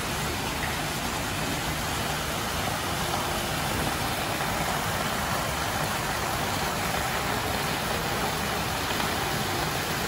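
Indoor fountain running: water falls in thin sheets from curved steel spouts and splashes steadily into a shallow basin.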